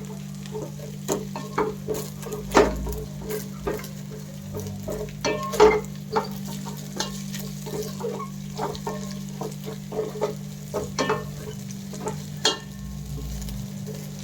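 A spatula scraping and knocking against a frying pan as beaten eggs are stirred and fried. There are irregular sharp clicks a few times a second over a faint sizzle, with a steady low hum underneath.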